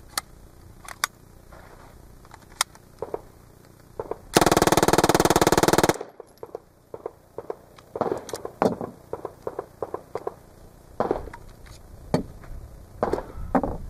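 M-11/9 9mm submachine gun in its original factory configuration firing one full-auto burst of about a second and a half, about four seconds in. Before and after the burst come scattered clicks and clatter of the gun and its parts being handled.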